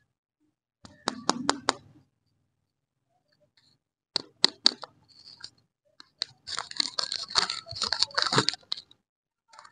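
A lollipop's wrapper crinkling and tearing as fingers unwrap it. There are a few sharp crackles about a second in, a few more near the middle, and then about two seconds of dense crinkling as the wrapper is pulled open.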